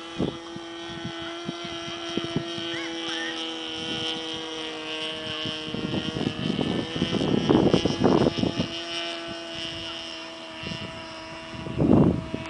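Radio-controlled Zlin Z-50 model aeroplane's OS rotary engine droning at a steady pitch as the model flies overhead. Loud rushing bursts of noise cut in about six to eight seconds in and again near the end.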